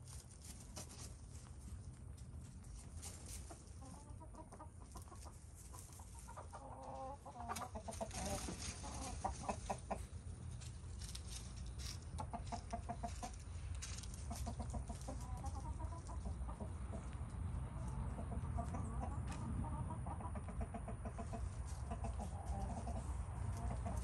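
Hens clucking on and off, starting a few seconds in and more often in the second half. Scattered clicks and rustling come from the rabbits moving about on feed pellets and straw, over a steady low rumble.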